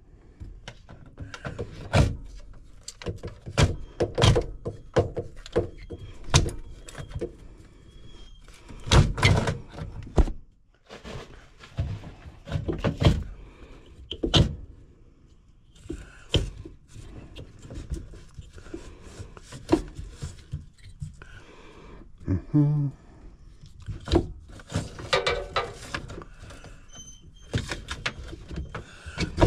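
Irregular knocks, clunks and rattles of hands and tools working on a UV light and sheet-metal ductwork, with a short pitched squeal about three-quarters of the way through.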